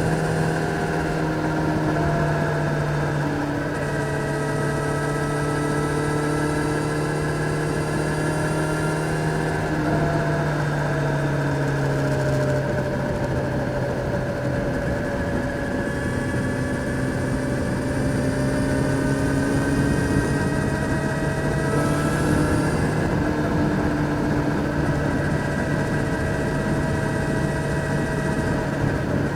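Kawasaki Z900's inline-four engine running at steady moderate revs under way, its pitch easing down about ten seconds in and rising gently again later.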